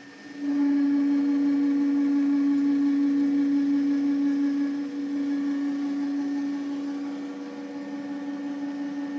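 CNC milling cutter circular-milling a bore in a large gearbox housing: a steady pitched whine with overtones. It starts about half a second in, drops in level about five seconds in, and carries on quieter.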